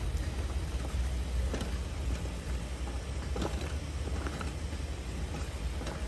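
Portable butane camping stove burning under a pot of boiling water: a steady low roar from the burner, with a few light ticks and pops from the boiling pot.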